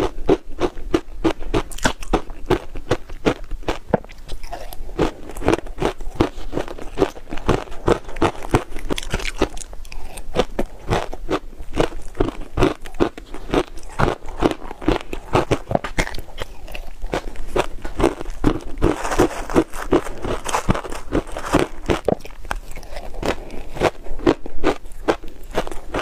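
Close-miked crunching and chewing of shaved ice heavily coated in purple sweet potato powder: a steady run of crisp crunches, several a second, without a break.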